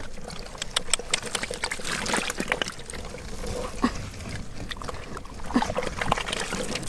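An arm groping in a muddy, water-filled hole, feeling for fish: wet squelching and trickling of muddy water, with scattered small clicks.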